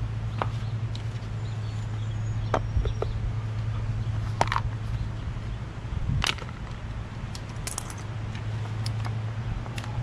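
Hubcap being worked off a lawn mower's plastic wheel: scattered sharp clicks and snaps, over a steady low hum.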